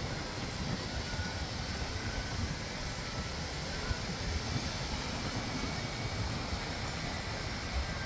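Wind rumbling steadily on the microphone over an even haze of beach ambience with light surf.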